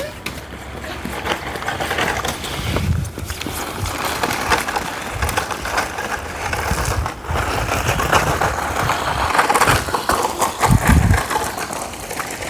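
Battery-powered DEERC 9308E RC truck driving fast over rough ground, its tyres crunching and rattling over the surface, with a few low thumps as it bounces.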